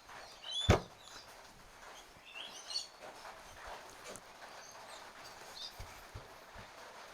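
A sharp click about a second in as small chainsaw parts are worked apart by hand, followed by fainter clicks and taps, with a few short high chirps scattered through.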